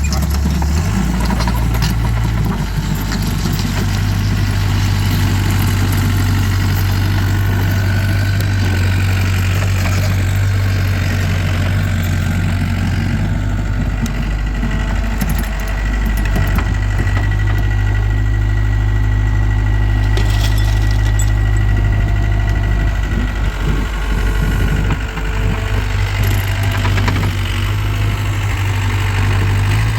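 Takeuchi TL26 skid steer's diesel engine running steadily while digging, its note stepping up about a second in. A thin high whine sits over the engine in the middle, with scattered short clanks and clatters there and near the end.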